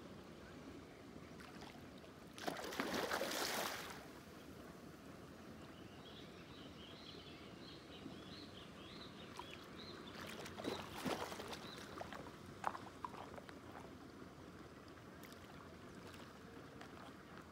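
A hooked fish splashing and thrashing at the surface of a pond, in a loud surge about two and a half seconds in and again around eleven seconds, with a few sharp knocks in the second. Between the splashes a small bird chirps rapidly, about four calls a second.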